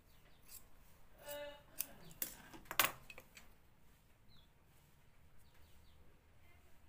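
Steel tailor's scissors snipping a fabric strip and clacking as they are set down on the sewing machine bed, a few sharp clicks about two to three seconds in. A short pitched call comes just before them, and faint bird chirps follow later.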